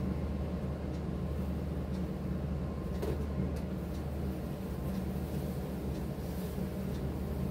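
A steady low machine hum, such as a fan or air conditioner running, with a few faint rustles of a chiffon saree being handled about three seconds in.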